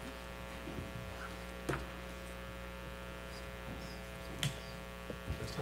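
Steady electrical mains hum in the sound system, with two faint knocks, one under two seconds in and another past four seconds in.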